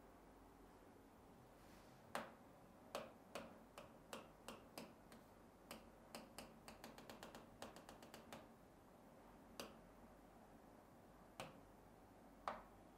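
Light, sharp taps and clicks of a pen on an interactive display board, coming irregularly in a quick cluster through the middle and a few more near the end, over quiet room tone.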